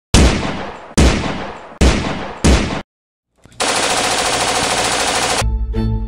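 Gunfire: four single gunshots, roughly a second apart, each with a fading tail, then after a short pause a continuous machine-gun burst lasting about two seconds.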